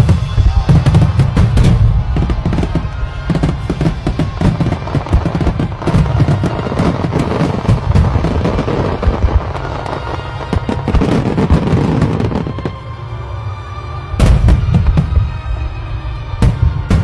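Fireworks banging and crackling in quick succession over background music, with a fresh burst of loud bangs near the end.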